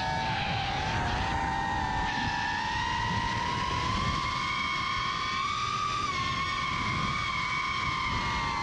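Whine of a 5-inch FPV racing drone's 2500kv T-Motor brushless motors and propellers as it chases a vehicle, with wind rush underneath. The pitch dips in the first second, climbs slowly to a peak a little past the middle, then eases down again with the throttle.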